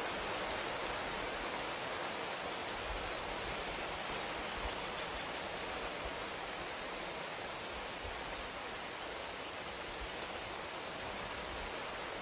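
Steady rain shower: an even hiss of falling rain with a few faint drop ticks.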